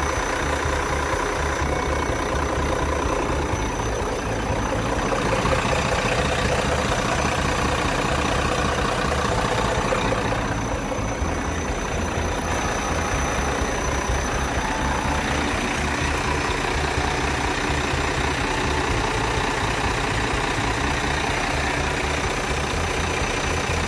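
Shacman H3000 heavy truck's diesel engine idling steadily, a little louder for a few seconds in the middle.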